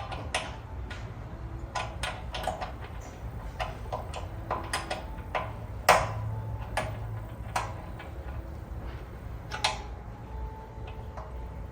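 Irregular clicks and light knocks of hand tools and bolts being worked while fitting motorcycle sheet metal, with one sharper knock about six seconds in.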